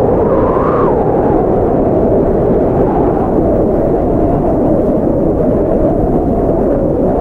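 Blizzard wind blowing steadily as a deep, low rush, its pitch drifting slightly up and down with the gusts.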